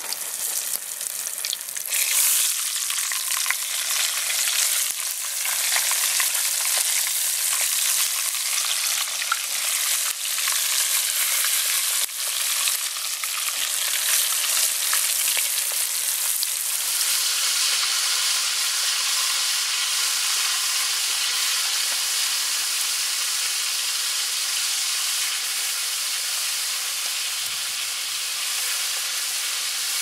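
Flour-breaded frog legs frying in hot vegetable oil in a cast-iron skillet: a loud sizzle that swells about two seconds in, crackling and popping through the first half, then settling into a steadier hiss.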